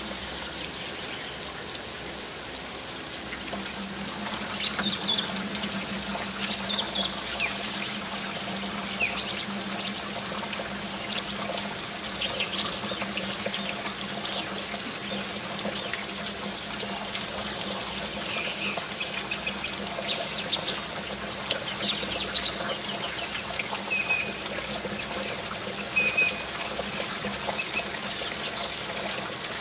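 Water trickling and pouring from a miniature water pump's hose, over a low steady hum that is strongest in the middle of the stretch. Short high chirps, like birds, run throughout.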